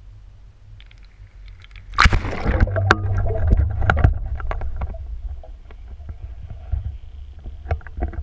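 Water sloshing and knocking heard muffled through an underwater GoPro's waterproof housing, over a steady low rumble. A sudden loud burst of sloshing with sharp clicks starts about two seconds in, then eases, with a few more clicks near the end.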